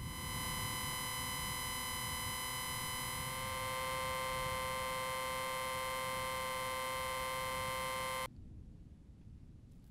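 A steady electronic buzzing tone, rich in overtones, starts abruptly and holds for about eight seconds before cutting off suddenly, over a low rumble.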